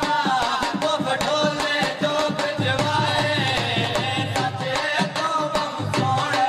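Punjabi dhol geet folk music: a dhol drum beats a quick, steady rhythm under a gliding melody line.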